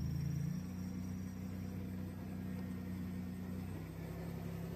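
Dodge Caravan minivan's engine running at low speed as the van creeps up onto ramps, a steady low hum that shifts slightly in pitch about half a second in and again near the end.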